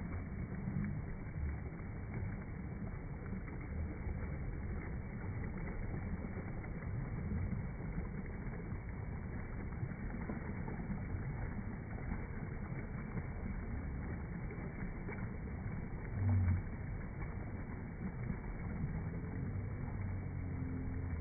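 Steady rushing roar of a waterfall, with a few low rumbles and a louder low bump about sixteen seconds in.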